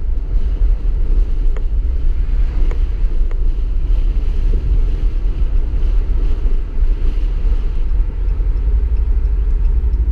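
2015 Ram 1500's 5.7L Hemi V8 with muffler delete and Y pipe, heard from inside the cab while driving: a steady, deep exhaust rumble under wind and road noise.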